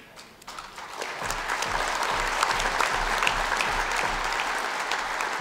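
Audience applauding, a crowd clapping. The clapping starts about half a second in, builds up over the next second, then holds steady.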